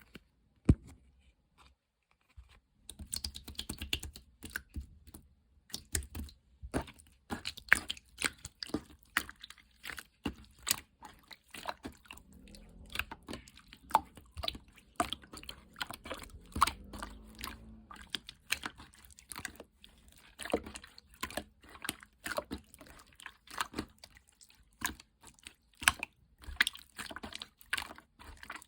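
Glue-heavy, runny slime being squished and poked by hand, making fast, irregular sticky clicks and small wet pops. After a single click just under a second in and a short pause, the clicking runs on densely from about three seconds in.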